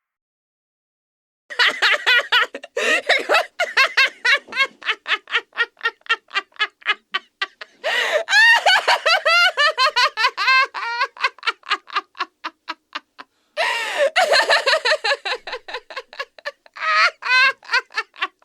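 High-pitched evil laugh sound effect: a long run of rapid 'ha-ha-ha' pulses starting about a second and a half in. It breaks off briefly about two-thirds of the way through, then takes up again.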